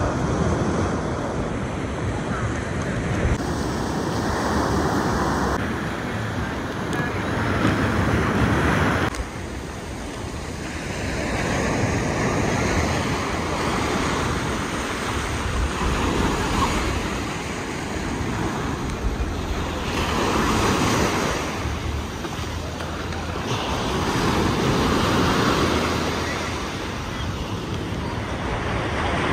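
Ocean surf breaking and washing up the sand, swelling and fading every few seconds.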